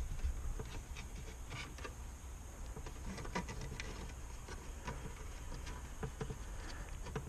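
Scattered small clicks and light rustling of hands handling wiring and plastic connectors behind a car dashboard, over a faint low steady hum.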